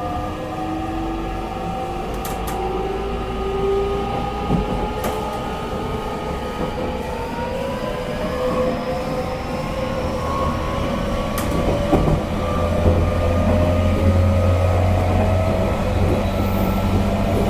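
JR Kyushu 813 series electric train's motor car running under way, heard from inside the car. The inverter and traction motor whine sounds as several tones rising in pitch while the train gathers speed, over the rumble of wheels on rail. A few sharp clicks come through, and the low rumble grows heavier in the second half.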